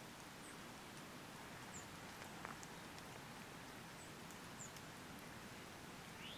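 Quiet woodland ambience: a steady faint hiss with a few brief, faint high chirps and scattered light ticks.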